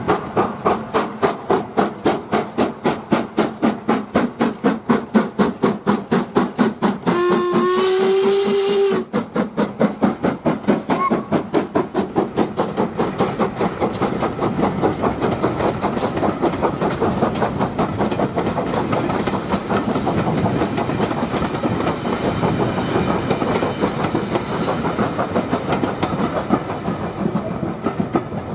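LMS Black Five 4-6-0 steam locomotive pulling away with a train: quick, even exhaust beats, with one whistle blast of about two seconds around seven seconds in. Then the coaches roll past with a steady wheel clatter as the exhaust fades away.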